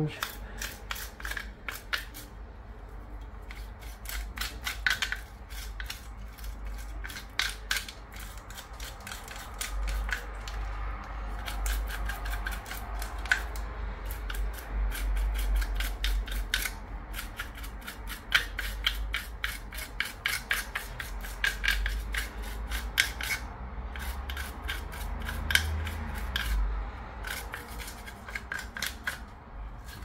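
Irregular scratching and scraping strokes with small clicks, from residue being scraped and rubbed off a metal detector's circuit board by hand, over a low steady hum.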